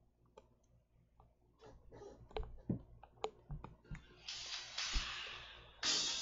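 Headphone handling: soft bumps and clicks as a pair of Sony MDR-V6 headphones is lifted off. From about four seconds in, music leaks thin and tinny from the earcups, louder near the end.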